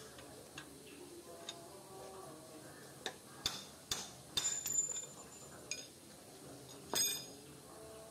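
Irregular sharp metal taps and clinks, some ringing briefly, from a steel rod knocking the old bearing cone out of a motorcycle's steering head. There is a quick cluster of knocks around the middle and a single loud clink near the end.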